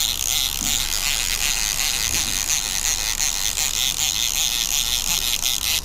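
Conventional trolling reel being cranked steadily to bring in a hooked fish, its gears giving a fast, continuous rasping click. A steady low hum runs beneath it.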